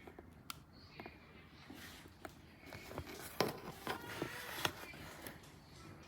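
Faint handling noises: scattered small clicks and short rustles, the sharpest about three and a half seconds in and again near five seconds.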